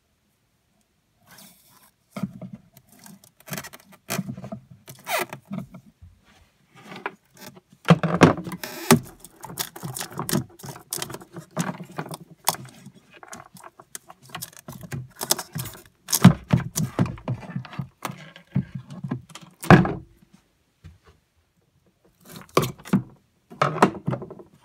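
Irregular clicks, knocks and scrapes of a screwdriver and hands prying and lifting batteries inside a PA speaker cabinet, with loose wires and connectors rattling. The loudest knocks come about 8, 16 and 20 seconds in.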